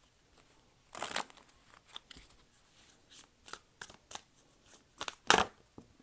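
Oracle cards being handled and shuffled: scattered light clicks and rustles of card stock, with two louder snaps, one about a second in and one near the end.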